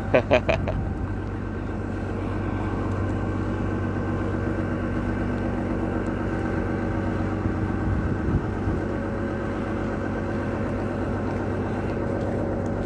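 City street traffic: a steady, even drone of vehicle engines with a low hum.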